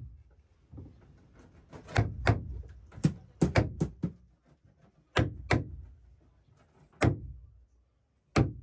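Hand tools struck against the wood of a plywood boat hull: about ten sharp knocks in irregular groups, some in quick pairs, each fading quickly.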